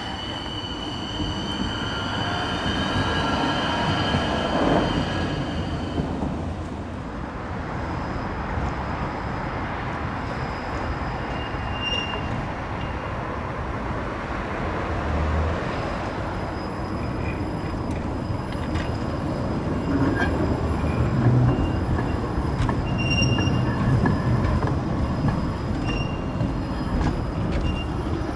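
Electric trams running on their rails: a steady rumble of wheels on track, with a high steady whine through the first several seconds and a few short, high wheel squeals later on, as on curves.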